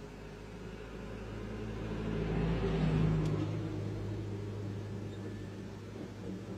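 A motor vehicle's engine driving past: its low hum grows louder to a peak about halfway through, then fades as it moves away.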